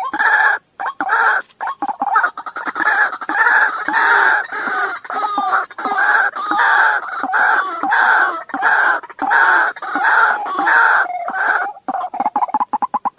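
White-breasted waterhen calling a harsh, repeated 'kru-ak', about two calls a second, running into a fast stutter of short notes near the end. It is a recorded call of the kind played as a lure to draw waterhens into a noose trap.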